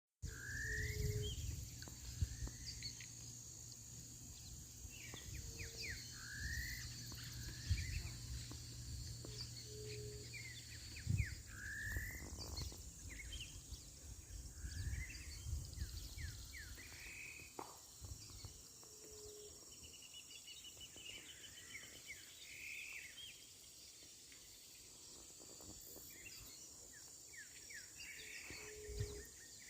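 Natural outdoor ambience: birds calling over and over with short rising chirps, a short low hooting note every few seconds, and a steady high insect drone underneath. A low rumble and a few brief low knocks run through the first half.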